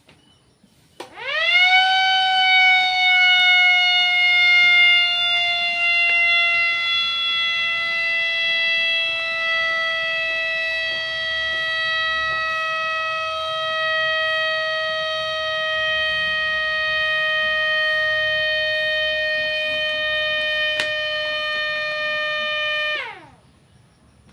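Siren horn running off a dying battery, sounding one long continuous tone for about 22 seconds. It winds up to pitch about a second in, sags slowly lower as it runs, then winds down and stops near the end.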